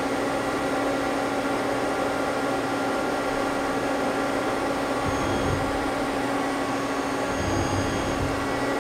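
Steady hum of a Mazak CNC lathe's running machinery, with its spindle stopped, holding a steady tone. Two brief low rumbles come about five seconds in and again near the end as the Z axis is jogged with the handwheel.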